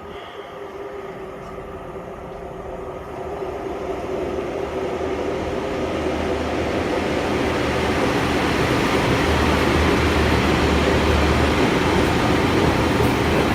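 Two coupled Class 143 Pacer diesel multiple units approaching, their engine and wheel noise growing steadily louder over the first several seconds and then holding loud and steady.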